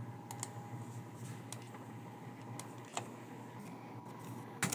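Scattered computer mouse and keyboard clicks, about seven sharp single clicks with the loudest near the end, over a steady low hum.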